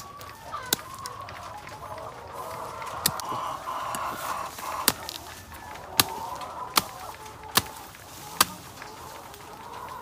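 Native chickens clucking, with about seven sharp knocks or snaps at irregular intervals.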